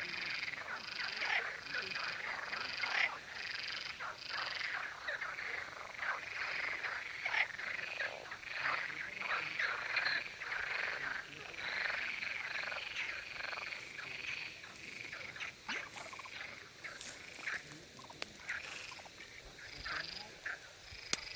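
A chorus of male frogs calling, with many short croaking calls repeating and overlapping. The chorus thins out and grows quieter in the last several seconds.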